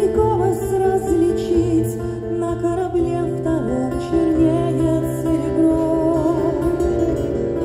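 A woman singing a slow song over acoustic guitar accompaniment, heard live through the concert sound system, her held notes wavering with vibrato.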